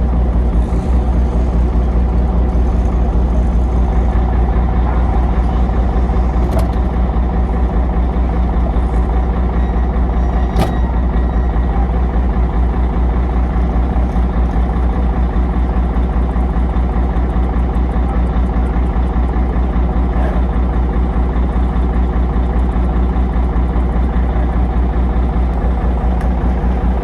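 Heavy vehicle engine running steadily, with one sharp click about ten seconds in.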